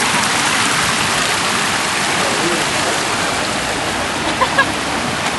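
Steady rushing splash of a park fountain's falling water. Two brief high blips sound about four and a half seconds in.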